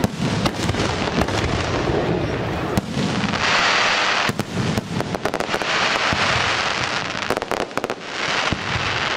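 Aerial firework shells bursting overhead: many sharp bangs in quick succession, with two stretches of dense high hiss a few seconds in.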